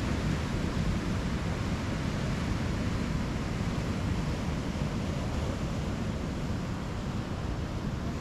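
Wind buffeting the microphone, a steady rumbling hiss, with the wash of ocean surf beneath it.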